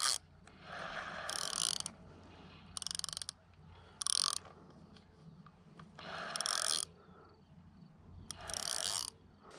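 Spinning fishing reel being wound in five short runs with pauses between them, a whirring, clicking sound, as line slack is taken up after a long cast of a bottom rod.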